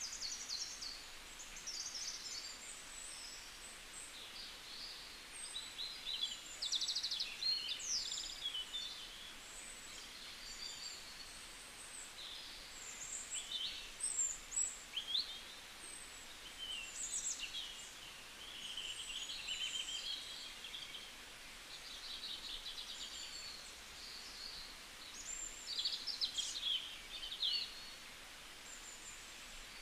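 Birds singing: many short, high chirps, whistled sweeps and quick trills, coming irregularly over a faint hiss.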